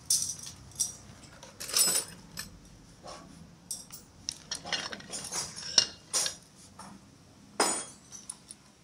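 Metal hand tools and parts clinking and clanking in short, irregular strikes, a dozen or so, the sharpest about two seconds in and near the end.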